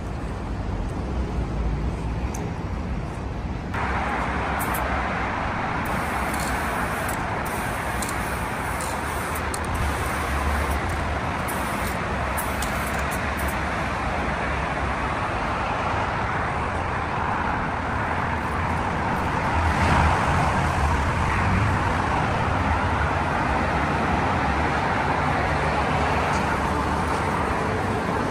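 Steady city road traffic: a continuous wash of passing cars with a low rumble. The sound changes abruptly about four seconds in, becoming a fuller hiss in the middle range, and swells briefly around twenty seconds in.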